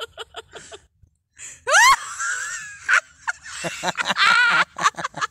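People laughing hard, with the laughter coming in quick breathy pulses. A little under two seconds in there is a loud, high-pitched rising squeal.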